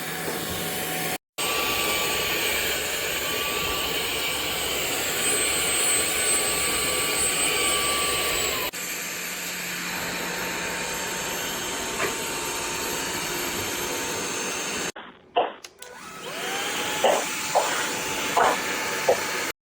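Cordless stick vacuum running, a steady rush of air with a motor whine. The whine steps down a little in pitch about halfway through. Near the end come a few knocks, and the motor spins up again.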